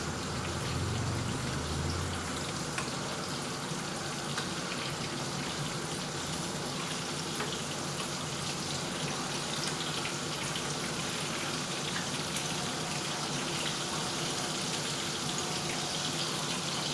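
Chicken pakoras deep-frying in hot oil: a steady, even sizzle.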